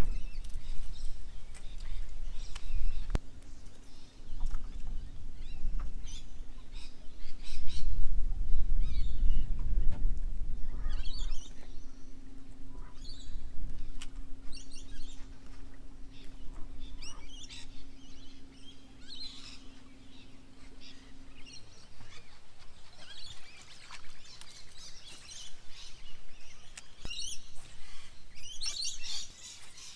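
Birds chirping and calling repeatedly in short phrases throughout. A low rumble fills the first ten seconds or so, and a steady low hum runs from about three seconds in until about twenty seconds in.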